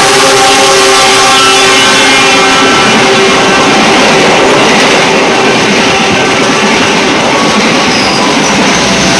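A diesel locomotive's horn sounds with several tones at once while the train passes at speed. Its pitch drops slightly as it goes by, and it fades out about halfway through, leaving the steady noise of wheels and carriages running on the rails.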